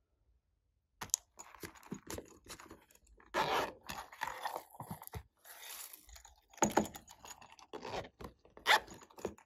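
Hands squeezing and handling a foam squishy toy: irregular crinkling, crunching and scraping, with louder crunches around the middle and near the end.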